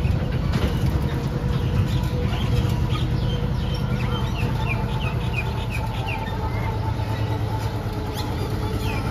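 Miniature zoo train's engine running steadily, with a series of short bird calls over it from about two and a half seconds in.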